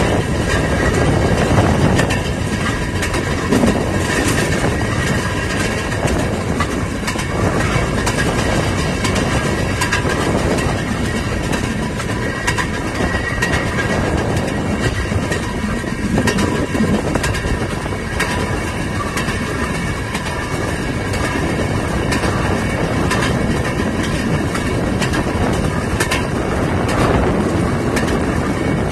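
Railroad speeder running along narrow-gauge track, a steady rolling din with the steel wheels clicking over the rail joints.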